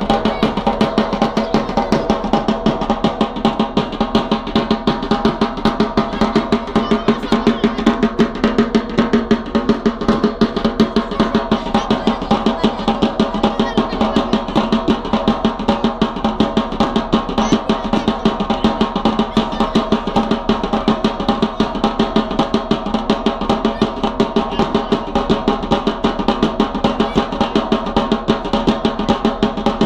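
Drums beating a fast, even rhythm to accompany a Yemeni bara' dance.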